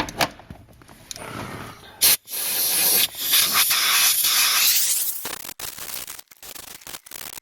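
Compressed-air blow gun blasting dust out of a car's dash area: a short sharp blast about two seconds in, then a longer hiss with a brief break, stopping just before the five-second mark. Scattered light knocks follow.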